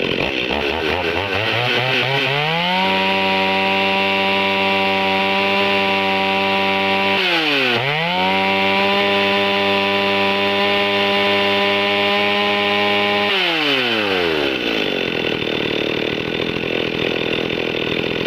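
Stihl 021 two-stroke chainsaw running: it climbs to high revs over the first few seconds and holds there. Its revs dip sharply and come straight back up about halfway through, hold high again, then drop back to a steady idle for the last few seconds.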